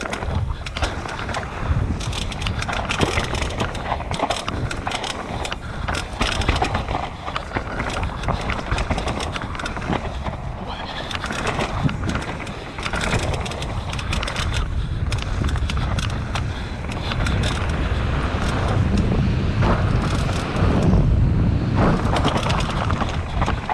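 Nicolai Nucleon 16 downhill mountain bike ridden down a rough trail: tyres rumbling over dirt and rocks with a constant run of sharp clicks and knocks from the bike, getting louder near the end. The rider blames popping noises on the damper in the RockShox Zeb fork.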